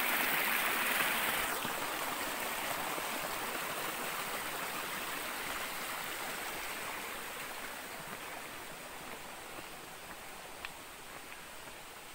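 A small stream of water running and splashing along a narrow channel, growing steadily fainter. A single short click comes near the end.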